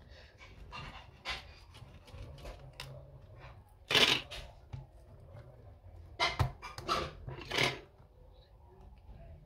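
Scraping and rustling noises from parts and tools being handled while an Apple Time Capsule is taken apart. The loudest scrape comes about four seconds in, and three shorter ones follow between six and eight seconds.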